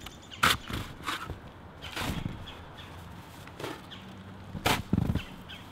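Snow shovel scooping and scraping through deep snow, with crunching footsteps: several sudden scrapes, the sharpest about half a second in and near the end.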